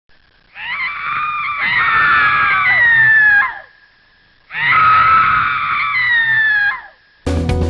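Two long, high-pitched human screams, a horror scream sound effect, each bending down in pitch as it ends. Guitar music cuts in abruptly at the very end.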